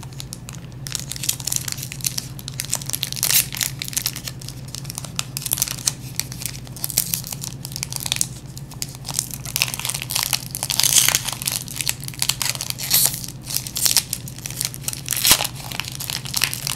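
Foil wrapper of a Pokémon TCG booster pack being crinkled and torn open by hand: a run of irregular crackles and rips over a steady low hum.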